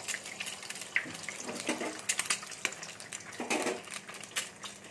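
Eggs frying in hot oil in an aluminium kadai: a steady sizzle, crackling with many sharp pops.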